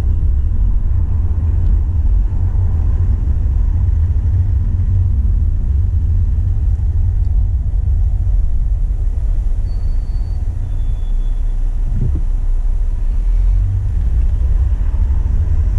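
Steady low rumble of a car being driven, heard from inside: engine and road noise with no change in pace, and a brief low thump about twelve seconds in.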